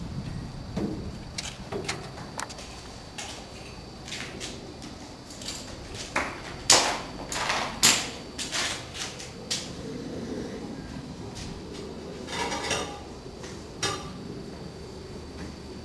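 Irregular clicks, knocks and rustling from handling a large rubber balloon and its string at a metal clamp. The loudest sharp clicks come in a cluster about six to eight seconds in, with a short rattle about twelve seconds in.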